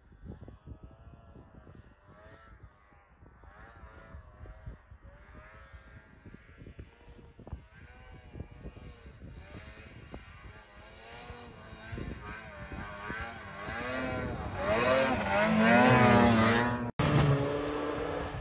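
Snowmobile engines revving at a distance, their pitch rising and falling with the throttle. The sound grows louder toward the end and then cuts off abruptly.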